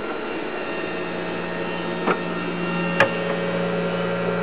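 Steady hum of a small bilge pump circulating cold antifreeze and 120 mm PC fans running in a homemade fermentation chilling chamber, just switched on by its thermostat. Two sharp clicks sound about two and three seconds in.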